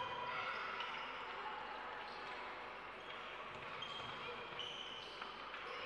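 Basketball game play on an indoor court: the ball bouncing, with several short, high squeaks, typical of sneakers on the hardwood, over a steady background noise of the hall.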